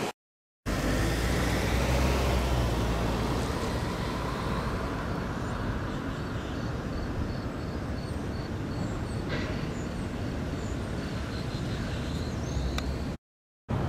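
Steady outdoor street ambience: a low rumble of wind on the microphone and road traffic. A faint high chirp repeats about three times a second for a few seconds in the middle. The sound cuts out briefly near the start and again near the end.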